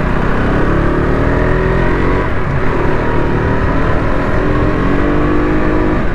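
A KTM RC sport motorcycle's single-cylinder engine running under way, its pitch rising and dropping several times as the rider accelerates and eases off.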